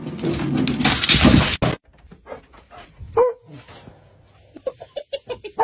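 A loud hissing rush of noise that cuts off suddenly about a second and a half in, then a dog's short whines and yips, with a quick run of them near the end.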